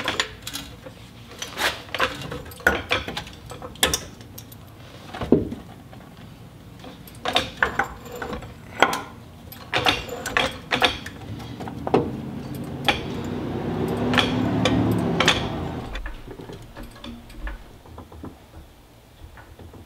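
Hydraulic floor jack being positioned and pumped under a car's rear trailing arm, with irregular metal clicks and clanks, lifting the arm to seat the loose coilover spring. About twelve seconds in a longer swelling noise rises in pitch and fades out again.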